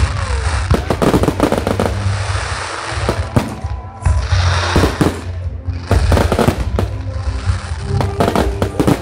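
Fireworks going off in volleys of sharp bangs and crackles, about one cluster every second or two, with music playing underneath.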